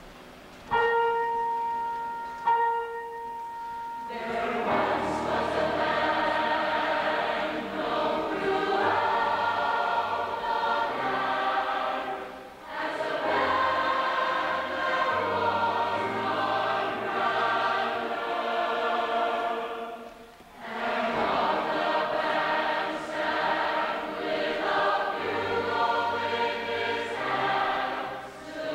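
Large show choir singing with accompaniment. Two held instrument notes start sharply about one second and two and a half seconds in, and the choir comes in about four seconds in over a moving bass line. The singing breaks briefly twice, near twelve and twenty seconds.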